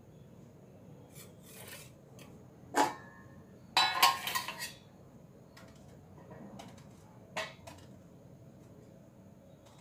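Kitchen handling sounds: a stainless steel plate knocks once, then clatters and clinks as it is picked up and handled, followed by a single lighter tap later on.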